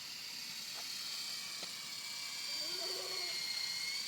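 RC helicopter's motor and rotor running in flight, a steady high-pitched whine over hiss that dips slightly in pitch near the end.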